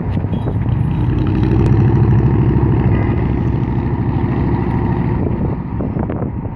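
Freight train's locomotive air horn sounding one long, soft chord of about five seconds, cutting off near the end, followed by wind noise on the microphone.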